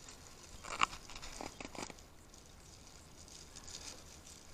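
Hands breaking open a dug plug of soil: crumbling and rustling, with a sharp crunch a little under a second in and a few short crackles around two seconds.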